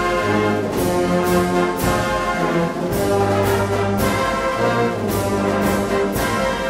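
Brass band music: held brass chords with a regular percussion beat about twice a second.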